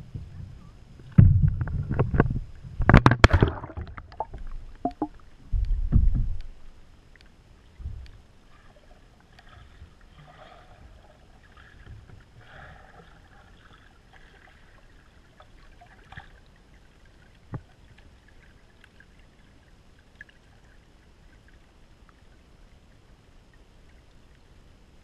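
Loud splashing and knocking close to a GoPro camera for the first few seconds as it goes off a kayak into lake water. Then muffled underwater quiet as it sinks, with faint distant sounds and a single tick about two thirds of the way through.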